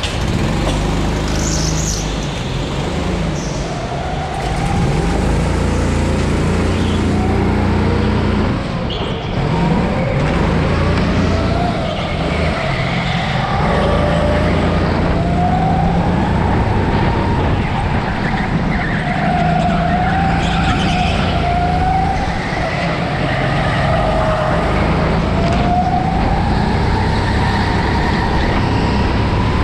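Rental go-kart driven on an indoor track, heard from on board: the motor note rises and falls over and over as the kart speeds up on the straights and slows for corners, over a low rumble. It is quieter for the first few seconds, then louder once the kart is up to speed.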